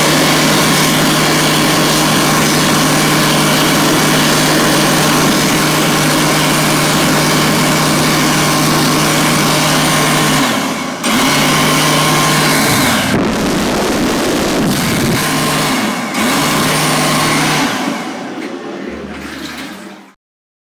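Xinda GSQ-250B automatic hand dryer running loudly with a steady motor hum and air rush. It briefly cuts out and restarts a few times as the hands move beneath it, then winds down near the end.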